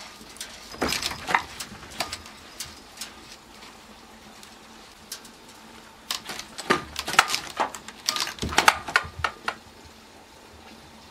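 Cats' claws catching and scraping on a mesh window screen, the screen rattling, with soft thumps as a cat climbs and drops back to the sill. The clicks and rattles come in irregular clusters, one about a second in and a longer, louder spell from about six to nine and a half seconds.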